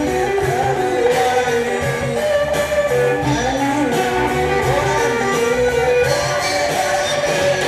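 Live rock band playing a full-band song: electric guitars over bass and a drum kit, with a bending melodic line that sounds like a sung vocal or lead guitar.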